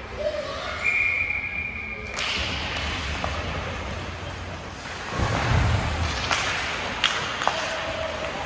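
Ice hockey play in a rink: a short, steady high whistle about a second in, then sharp clacks of sticks on the puck and a loud, heavy thud against the boards about five seconds in.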